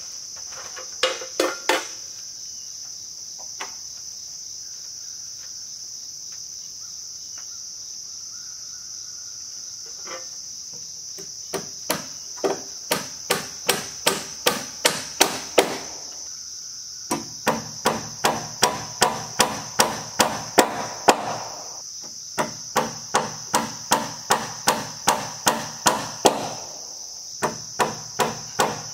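Hand hammer driving nails through metal hurricane straps into wooden rafters, in runs of quick strikes about two a second with short pauses between nails. A steady high insect drone sounds behind it throughout.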